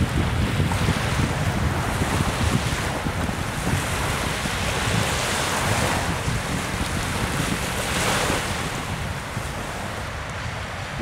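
Wind rumbling on the microphone over a rushing wash of choppy bay water that swells every few seconds; the wash thins near the end.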